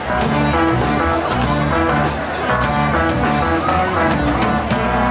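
Live fusion band playing an instrumental passage: a drum kit keeps a steady beat under guitar and keyboard.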